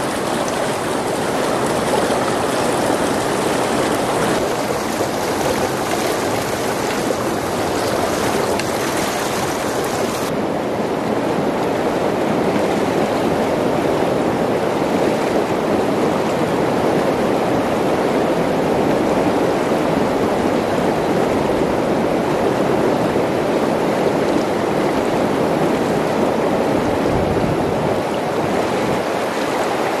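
Shallow rocky stream flowing steadily over stones, a continuous full rush of water. Its higher hiss thins out about a third of the way through.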